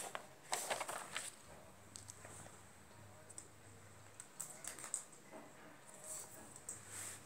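Paper rustling and small clicks as hands set down a sheet of paper and handle plastic glue-gun parts and wires, in scattered clusters with quiet gaps between.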